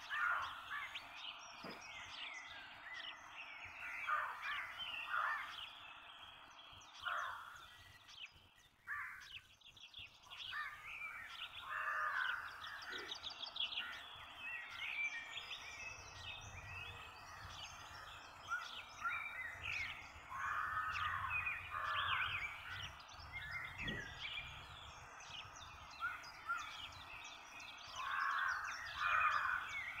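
Morning bird chorus: many birds chirping, trilling and calling over one another without pause, with a few louder calls standing out now and then.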